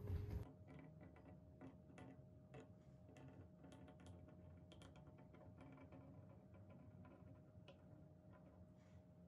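Near silence: room tone with a faint steady hum and faint, irregular small ticks.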